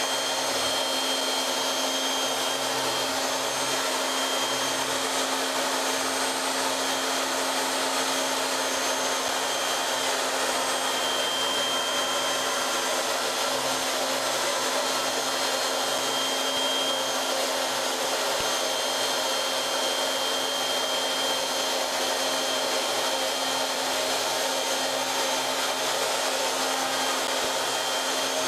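CNC router spindle running steadily while its end mill cuts a pocket in a foam tooling block, moving at a raised feed rate: an even whirring hiss with a steady hum and a faint high whine.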